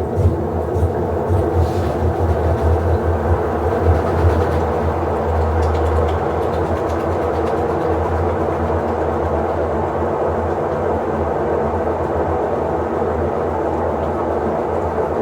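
Electrolux LTE08 top-loading washing machine running with a steady motor drone and rumble, uneven for the first few seconds and then settling into an even hum.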